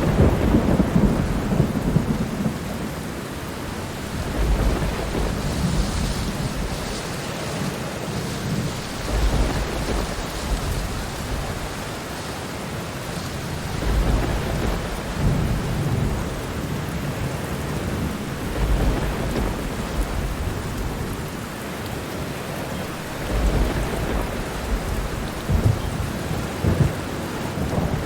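Steady rain with rolling thunder, the low rumbles swelling and fading every few seconds.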